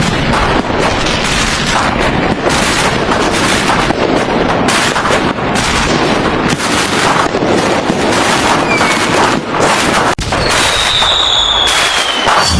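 Fireworks going off in a dense, continuous barrage of overlapping bangs and crackling firecrackers. About ten seconds in the barrage thins and a whistle slowly falls in pitch for about a second and a half.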